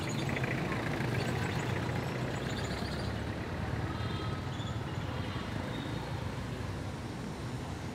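Street traffic noise: motor scooters and other vehicles passing close by, their engines running in a steady low hum.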